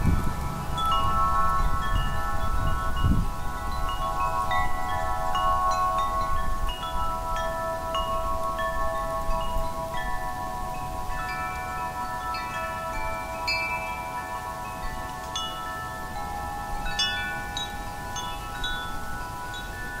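Wind chimes ringing, many metal notes struck at irregular moments and left to ring over one another. A low gust of wind sounds in the first few seconds. The chiming grows slowly quieter.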